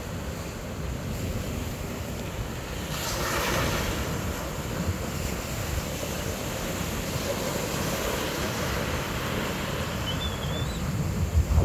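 Wind buffeting the microphone over choppy water and waves, a steady rushing noise with a low rumble. About three seconds in the rush of water swells louder for a second or so.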